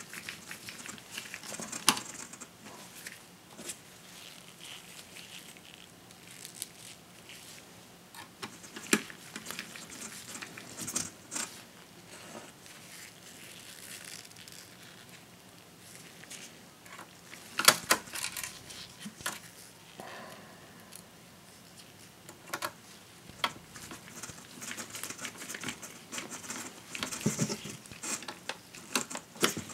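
Small laptop screws being driven back into a 2.5-inch SSD's drive caddy with a mini Phillips screwdriver. Scattered light clicks and taps of the tool and screws on metal and plastic come against the rustle of gloved hands, with the loudest clicks in a cluster a little past halfway.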